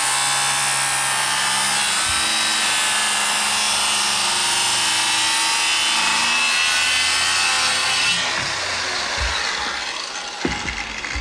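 Corded circular saw cutting across a thick green timber beam, its blade not deep enough to go all the way through. It runs steadily, then is switched off about eight seconds in and winds down, with a few knocks near the end.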